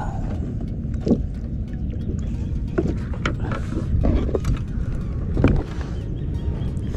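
Steady low rumble of wind and water on a small kayak, heard close on the camera's microphone, with a few short knocks and rustles as bait and fishing tackle are handled in the boat. The sharpest knock comes about five and a half seconds in.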